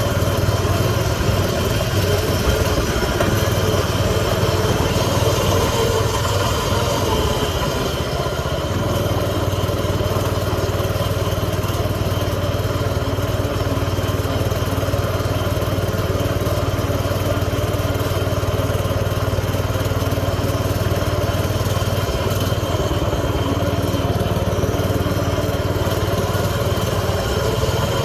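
Pocket bike's small engine running steadily throughout, with a strong low hum and only a slight dip in level about eight seconds in.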